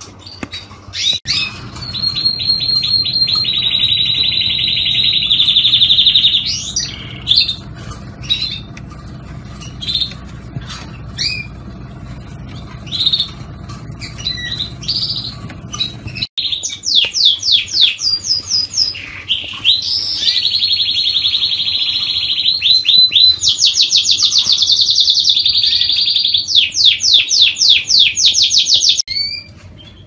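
Parisian Frill canary singing: long trills of fast repeated notes and buzzy rolls, broken by short chirps. The song breaks off about halfway and picks up again with more fast rising runs and rolls, stopping just before the end.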